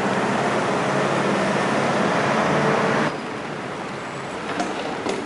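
A motor vehicle's engine running close by, a steady low hum over the hiss of wet-road traffic and rain. The sound cuts off abruptly about three seconds in, leaving a quieter rain-and-street hiss with a couple of faint clicks.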